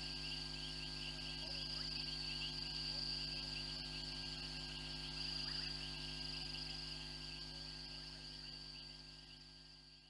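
Steady night-time chorus of crickets chirring, over a low steady hum, gradually fading out near the end.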